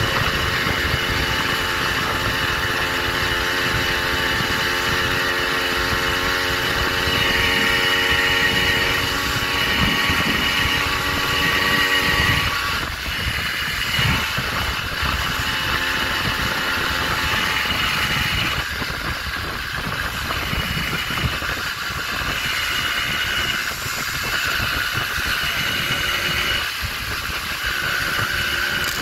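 Small gas engine of a motorized bicycle running while riding. Its note holds steady for about the first twelve seconds, then drops back and turns rougher. Wind rumbles on the microphone throughout.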